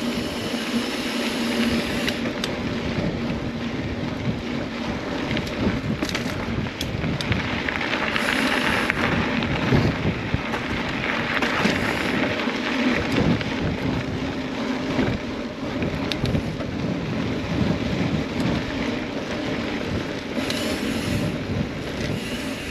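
Mountain bike rolling over a rough dirt trail, with a steady rush of wind noise on the microphone and frequent short knocks and rattles from the tyres and bike.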